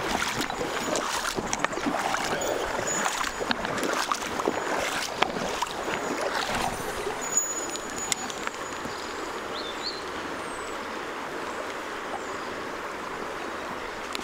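River water rushing steadily, with irregular small splashes and clicks through the first half, then an even, slightly quieter rush.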